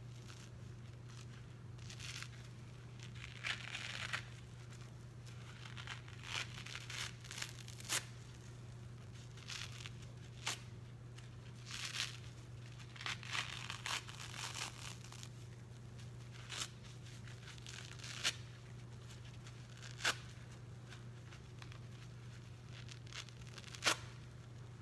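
A soap-soaked kitchen scrub sponge being torn apart by hand, with irregular wet ripping and crackling and now and then a sharp snap as a piece gives way.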